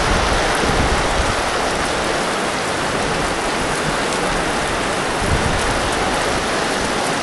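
Heavy tropical downpour falling steadily, an even, unbroken hiss of rain.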